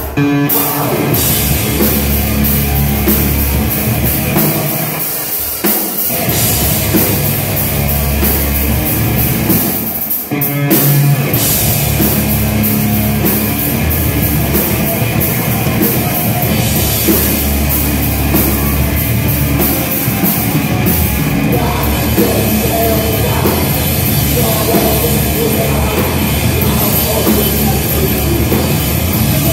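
Live hardcore punk band playing loud, with distorted electric guitar and a drum kit; the low end drops out briefly twice, about five and ten seconds in.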